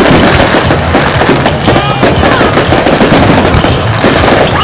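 A fireworks display in full barrage: aerial shells bursting one after another and crackling without pause, very loud.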